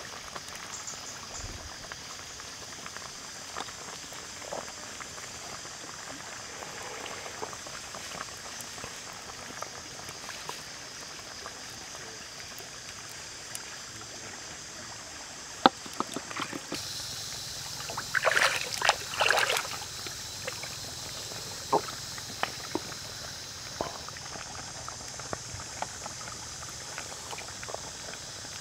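A wok of curry simmering over a wood fire, with a steady high hiss behind and light scattered clinks. Liquid is tipped in from a bowl and the pot is worked, with a loud splashing stretch of about a second and a half some 18 seconds in.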